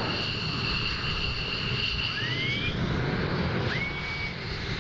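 Fighter jet engines receding after take-off: a steady distant rumble with a high whine that fades out about halfway through.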